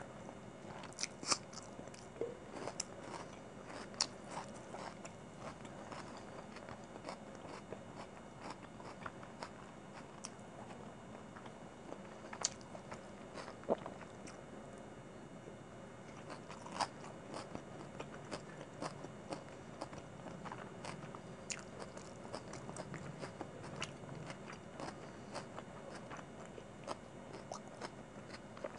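Close-miked eating of chicken biryani by hand: chewing and crunching with many irregular sharp wet clicks, and fingers squishing and mixing rice and chicken on a plate.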